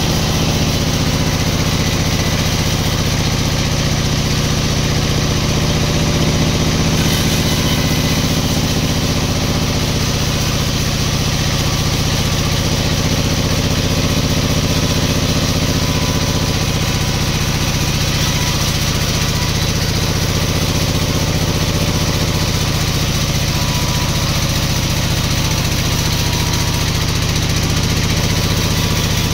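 A sawmill's engine running steadily at an even speed, with no change in pitch or load.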